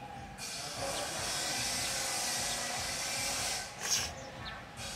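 A steady high hiss that switches on and off abruptly, broken about four seconds in by a single sharp chop of a cleaver on a wooden chopping block.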